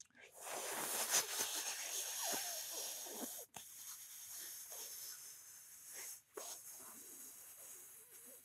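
Long, airy breathing through pursed lips, close to a headset microphone. It is loudest at the start, breaks off briefly twice, and fades toward the end.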